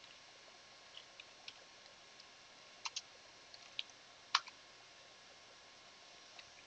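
Faint, irregular computer keyboard keystrokes as a terminal command is typed, about a dozen clicks over the first four and a half seconds. The loudest keystroke comes a little past four seconds in, when the command is entered.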